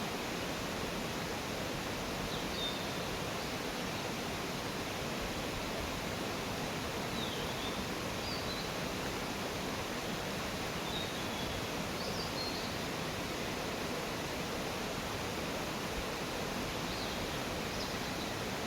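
Steady rush of a mountain stream, with a few brief high bird chirps now and then.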